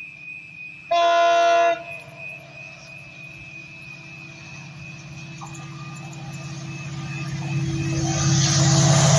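Indian Railways diesel locomotive sounding one short horn blast about a second in. Its engine throbs louder as it approaches, and wheel and rail noise rises near the end.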